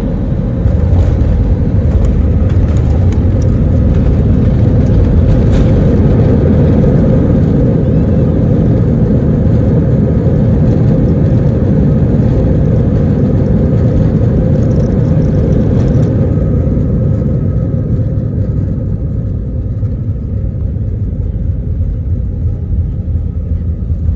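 Airbus A320 jet engines rumbling loudly. The rumble swells about a second in, holds, then eases off gradually after about sixteen seconds.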